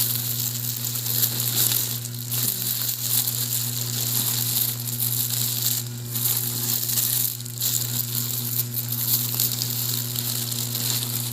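Plastic packaging of face mask packs crinkling and rustling as it is handled, with no break, over a steady low hum.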